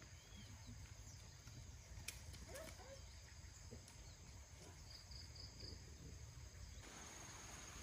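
Near silence: faint outdoor ambience with a low hum, a few light scattered clicks, and a quick run of four high chirps about five seconds in.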